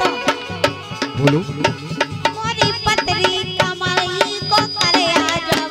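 Bundeli Rai folk music: a barrel drum (dholak) beaten in fast, even strokes over held harmonium tones. A woman's high, wavering singing voice comes in about halfway through.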